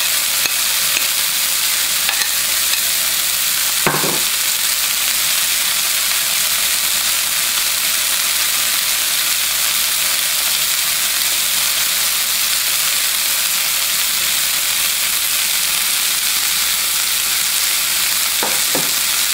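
Chicken strips with sliced green bell pepper and red onion sizzling steadily in oil in a hot frying pan, with tongs moving them now and then. A short knock sounds about four seconds in.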